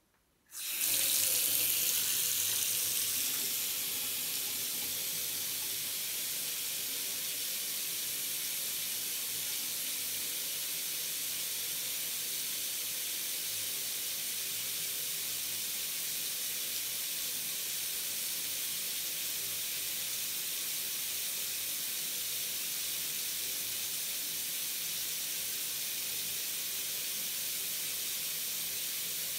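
Bathroom sink faucet turned on about half a second in, then running a steady stream of water into the basin. It is a little louder for the first few seconds, then holds level.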